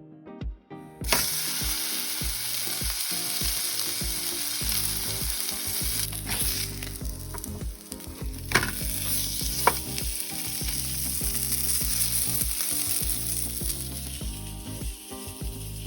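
Ribeye steak sizzling in a hot frying pan, the sizzle starting suddenly about a second in and running steadily, with a few sharp clicks along the way.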